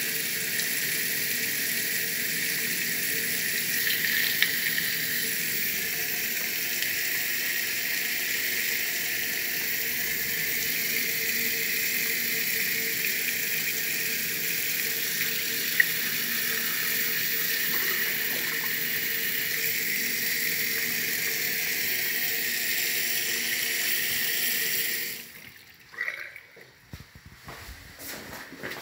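Water running steadily from an electric instant-heating faucet into a washbasin, with a faint steady tone under the hiss. It stops about 25 seconds in, followed by a few light knocks.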